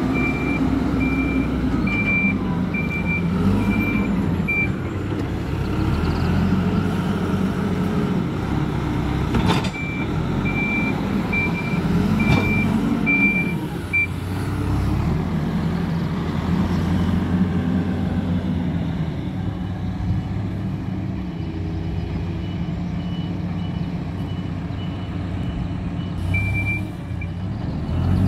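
Hidromek 102S Supra backhoe loader's diesel engine running, its note rising and falling with the throttle as the machine works. Its reversing alarm sounds in runs of evenly spaced beeps, about two a second, at the start, again around the middle, and briefly near the end.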